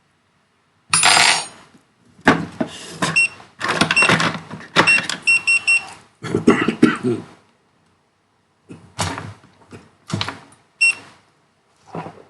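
Objects being handled on a repair bench: a run of clattering and rustling with small ringing clinks for several seconds, then a few separate knocks near the end.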